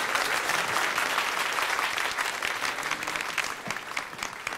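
Audience of diners applauding, dense clapping that thins out to scattered single claps near the end.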